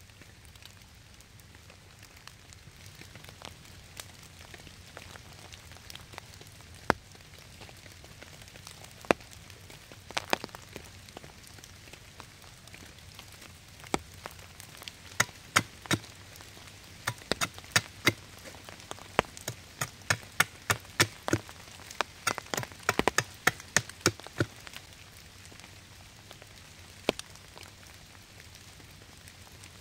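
Sharp cracks and snaps of wood at a campfire, a few at first, coming thick and fast through the middle and thinning out near the end, over a steady patter of rain.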